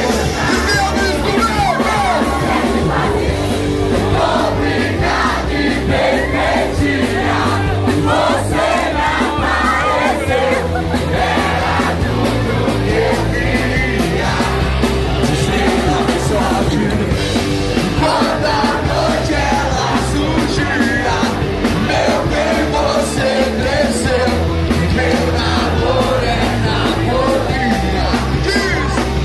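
Live rock band playing loudly: electric guitar, bass and drums with a singer on the microphone, and the crowd shouting along.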